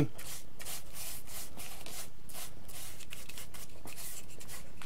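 Bristle paintbrush being worked back and forth over the EPO foam of an RC airplane fuselage, brushing on a wet coat of polycrylic finish: a run of quick, scratchy strokes, a few a second.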